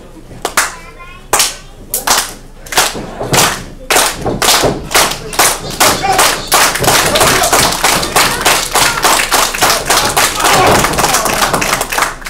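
Sharp slaps and thuds from a live wrestling match, a handful spaced out at first and then coming fast and dense from about four seconds in, with voices shouting over them.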